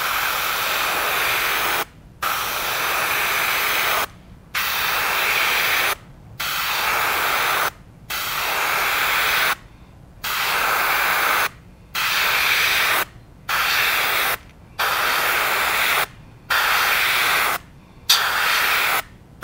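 Airbrush spraying paint onto a crankbait in repeated passes: a steady hiss that stops briefly about every one and a half to two seconds, then starts again.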